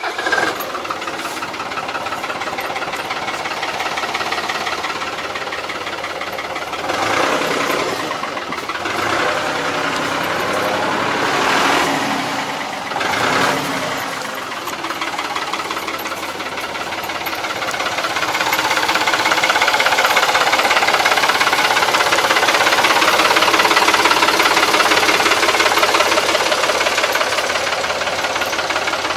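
A diesel tractor engine running close by. It swells briefly in revs three times around the middle and runs louder and fuller for the last third.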